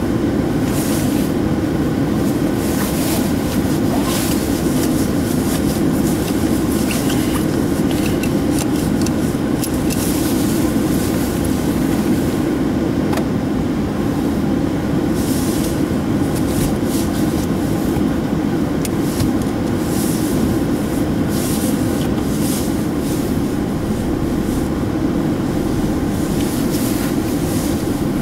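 Steady drone of tyre, road and engine noise inside the cabin of an Opel Astra coupe driving on a snowy road.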